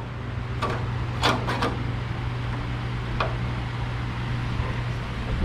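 A few short, light clicks and taps from sheet metal and hand tools being handled, about four in all, over a steady low background hum.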